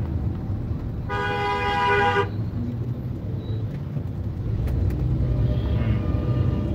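A vehicle horn honks once for about a second, starting about a second in, over the steady low rumble of a car driving in traffic, heard from inside the cabin.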